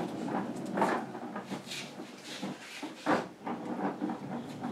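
Wooden knocks and clunks with some scraping as a wheeled wooden cabinet stand is rolled to a stop and nudged into place, a little way off. The knocks are separate and uneven, and the loudest comes about three seconds in.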